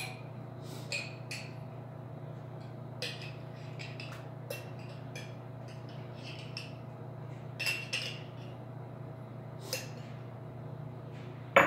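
A utensil scraping and clinking against the inside of a glass jar as grape jelly is scooped out of it, in short irregular strokes over a steady low hum, with a sharper knock near the end.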